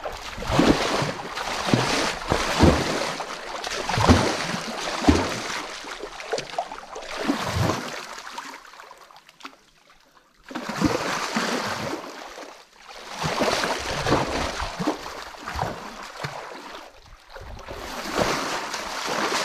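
Shallow muddy water splashed repeatedly by hand, in irregular strokes, with a short lull near the middle.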